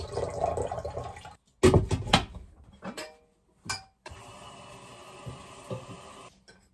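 Kitchen tap water running into the sink, breaking off abruptly several times. In between come a few short knocks, and near the end a steadier stretch of running water.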